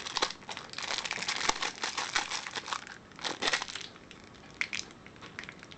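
Packaging crinkling as it is handled: a dense run of crackling for the first few seconds, then a few shorter rustles, thinning out toward the end.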